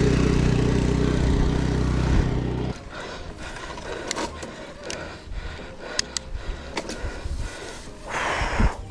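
A motor vehicle's engine running close by with a steady low drone, cut off abruptly about three seconds in. After that comes quieter road noise with scattered sharp clicks and a short rush of noise near the end.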